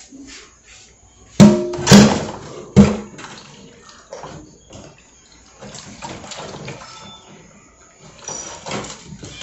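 Pots, pans or dishes clattering while being handled in a kitchen: three sharp knocks, each with a short ringing tone, about a second and a half to three seconds in, then lighter scattered clinks.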